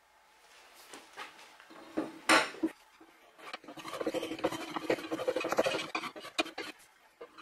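A steel straight edge is set down on a wooden workbench with a metallic clatter about two seconds in. After that comes a quick run of short scraping strokes: a finely set block plane shaving the high spots off the wooden sole of a coffin smoother to flatten it.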